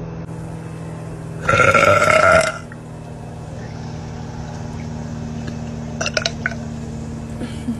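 A woman's single loud burp lasting about a second, starting about a second and a half in, its pitch rising slightly toward the end. A steady low hum runs underneath, and a few short clicks come later.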